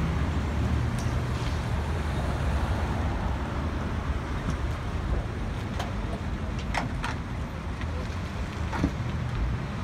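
Street ambience: a steady low traffic rumble with wind buffeting the phone's microphone, and a few short clicks scattered through, the sharpest near the end.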